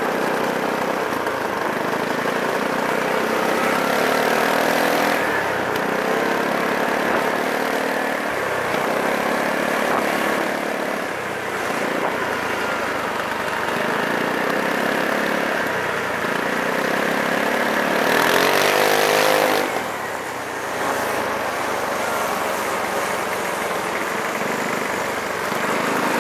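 Motorcycle engines running at low speed as a line of motorcycles rolls by, the engine note changing every couple of seconds as one machine follows another. About three-quarters of the way through, one engine revs up in a rising pitch and then falls back.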